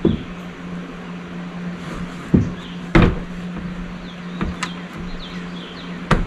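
A few wooden knocks and bumps as a sheet of T1-11 plywood siding is pushed and fitted into a framed gable opening, over a steady low hum.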